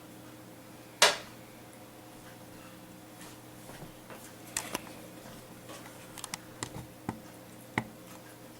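A sharp knock about a second in, then scattered light clicks and taps of kitchen utensils against a pan and bowl while pancakes are being made, over a steady low hum.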